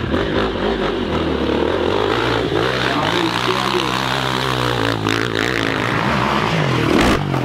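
Motocross bike engine running at high revs under load on a steep hill climb, its pitch rising and falling with the throttle. It is loudest just before it cuts off near the end.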